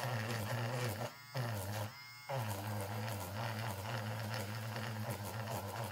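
Derwent battery-powered electric eraser buzzing as its spinning tip erases pastel on paper through a stencil. The motor cuts out briefly twice, about one and two seconds in, then runs on steadily.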